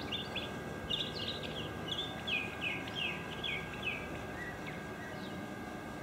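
Northern mockingbird singing: a quick run of short, repeated falling chirps that thins out to a few fainter notes near the end, over a faint steady hum and outdoor background noise.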